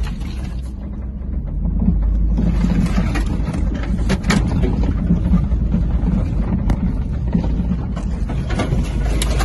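Vehicle cabin on a rough gravel forest road: a steady low rumble of engine and tyres, with a few sharp knocks and rattles as it goes over bumps.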